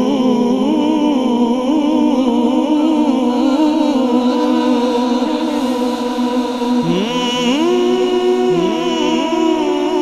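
Unaccompanied devotional vocal music (naat): a sustained vocal drone of several held voices. From about seven seconds in, a voice slides upward again and again into long held notes.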